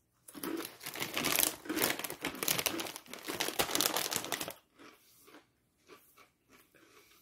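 Crunchy rolled corn tortilla chips (Takis Intense Nacho) being bitten and chewed by two people: dense, crackly crunching for about four seconds, then dying down to faint chewing.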